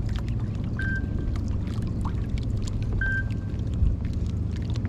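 Water lapping and slapping against a kayak hull, with wind buffeting the microphone. Two short beeps sound about two seconds apart.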